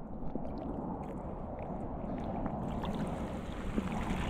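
Shallow water sloshing and trickling as a cast net is drawn back through it. About two and a half seconds in the sound turns brighter with splashing and dripping as the net nears the surface.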